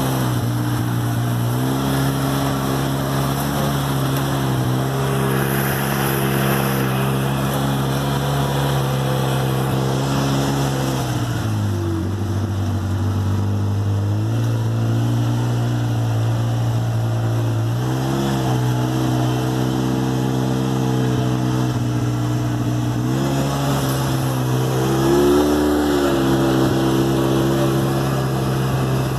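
Engine of an off-road side-by-side running at a steady pace, heard from the driver's seat. Its pitch drops for a couple of seconds a little before halfway, then rises and dips briefly a few times later on as the throttle changes.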